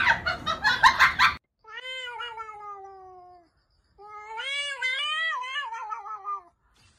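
A domestic cat yowling in two long drawn-out calls, the first falling in pitch, the second wavering up and down. Before them, a noisy clattering burst with clicks cuts off about a second and a half in.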